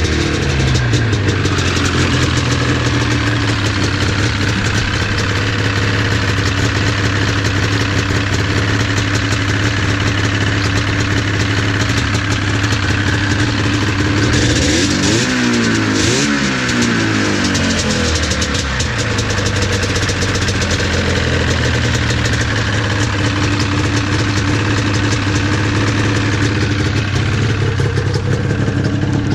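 1980 Ski-Doo Blizzard 9500 Plus snowmobile's two-stroke engine idling steadily, blipped up once about halfway through and settling back to idle.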